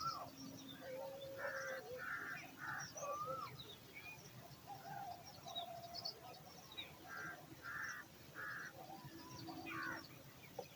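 Birds calling: two runs of three short calls, one near the start and one later, among gliding whistles and high chirps.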